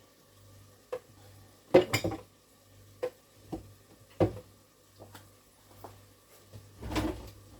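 Pots and kitchen utensils clattering and knocking as they are handled: a string of separate sharp knocks, the loudest about two seconds in and again about four seconds in, with a longer clatter near the end, over a low steady hum.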